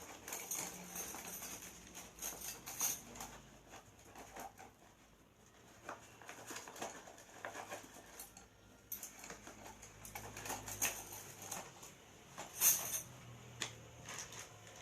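Irregular rustling, light clicks and knocks of tent parts and packaging being handled. There is a quieter lull about five seconds in and one sharper knock near the end.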